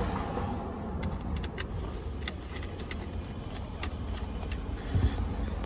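Small metal clicks and taps of a screwdriver working the bolts of a steering wheel's paddle-shifter and button mount, over a steady low rumble. A heavier thump comes about five seconds in.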